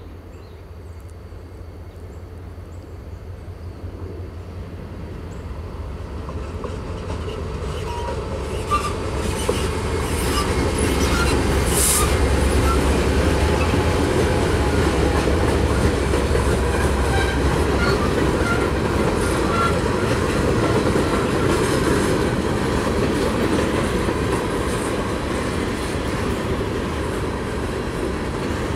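CSX freight train approaching and passing: the diesel locomotives' engine rumble grows louder over the first ten seconds or so and is strongest as they pass. Then the freight cars roll by, their wheels clicking over the rail joints with short squeals.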